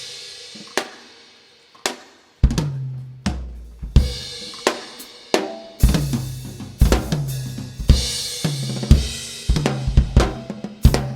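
Drums and cymbals from a live band: a crash, a few sparse hits, then from about two and a half seconds in a steady beat of drum strikes with low sustained notes under them and swells of cymbal.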